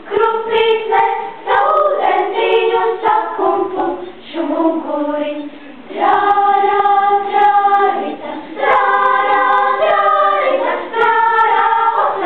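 Children's choir singing: phrases of sung notes, softer for a moment about four seconds in, then long held chords.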